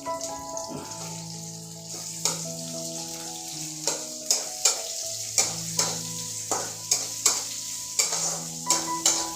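Chopped onion sizzling in hot oil in a kadhai while a spatula stirs it, scraping and knocking against the pan, the knocks coming more often in the second half. Soft background music with held notes plays underneath.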